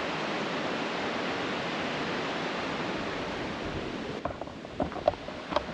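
Steady rushing of falling water from a nearby waterfall, which drops away abruptly about four seconds in, leaving a few faint clicks.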